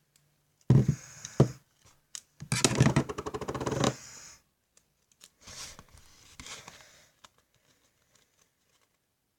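Paper and sticky tape being handled while a paper squishy is folded and taped: a short crinkling burst about a second in, a longer rapid crackle around three seconds in, then softer paper rustling.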